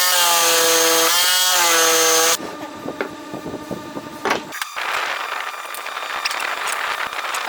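Electric power saw running and cutting wood: a loud motor whine whose pitch sags briefly twice as the blade bites, then stops abruptly a little over two seconds in. After that come quieter scattered clicks and knocks of wood being handled, then a steady, softer machine hum.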